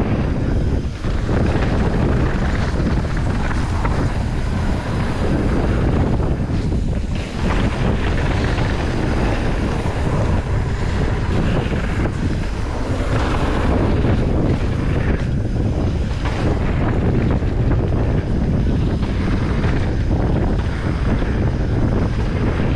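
Wind rushing and buffeting over the microphone of a camera carried by a rider descending on a downhill mountain bike, mixed with the tyre and trail noise of the ride. The noise is steady and heavy in the lows, with a few brief dips.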